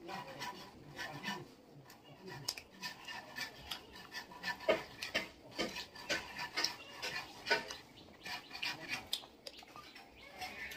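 Close-up eating sounds: fingers mixing and scooping rice on a banana leaf, with chewing and mouth smacks, a steady string of short, irregular soft clicks.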